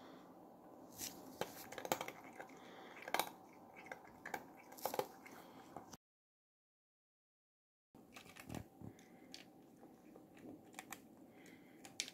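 A cat eating from a plastic tray: irregular chewing and crunching clicks, busiest between about one and five seconds in. The sound cuts out entirely for about two seconds in the middle.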